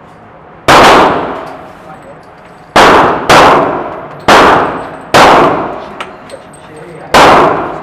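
Six gunshots fired at an indoor shooting range at an uneven pace, each ringing out with a long echo off the range walls.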